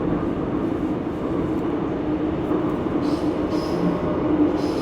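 Subway train running between stations, heard from inside the passenger car: a steady rumble with a low hum and brief hisses in the second half.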